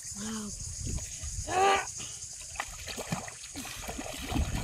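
Muddy pond water sloshing and splashing as hands grope inside a bamboo polo fish trap in shallow water. A short, loud pitched call cuts in about a second and a half in.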